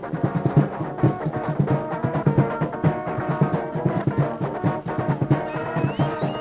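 Punk band playing a passage with a fast drum beat under held pitched instrument notes. A thin high tone glides upward near the end.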